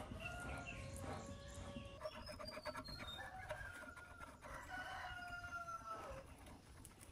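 Roosters crowing faintly, several long drawn-out crows one after another that die away about six seconds in, with a few light clicks between them.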